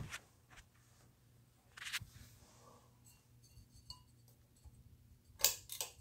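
Hunter Essex ceiling fan running with a low steady motor hum, punctuated by sharp clicks from its pull-chain switch being pulled. One click comes at the start, a few more about two seconds in, and the loudest pair of clicks near the end.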